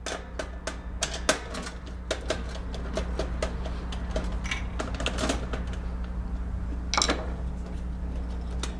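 Irregular metal clicks and small clatters from a screwdriver working the two front screws and handling the sheet-metal mount of a vending machine's shelf-drop vend motor. A louder clack comes about seven seconds in, and a steady low hum runs underneath.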